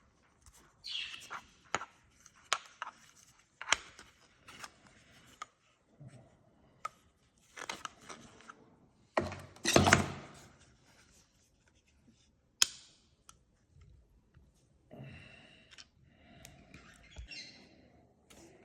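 Unboxing handling noise from a car phone holder and its packaging: scattered plastic clicks and taps mixed with rustling. The loudest rustle comes about nine to ten seconds in.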